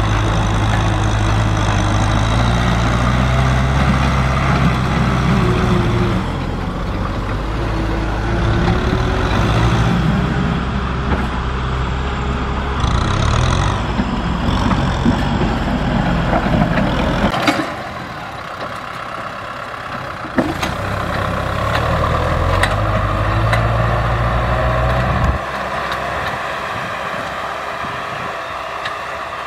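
Kubota M6040SU tractor's diesel engine running as it works the soil with its front blade and disc plough. The engine note rises and falls, then changes abruptly twice in the second half, each time to a quieter, lighter sound.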